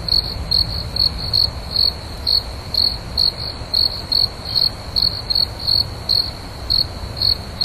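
Crickets chirping at night: short high-pitched chirps, about three a second in an uneven rhythm, over a steady high trill and a faint low rumble.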